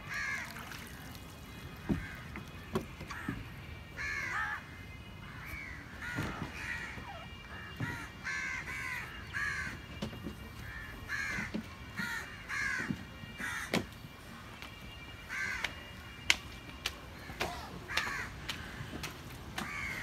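Crows cawing over and over, short harsh calls about once a second, with a few sharp knocks here and there.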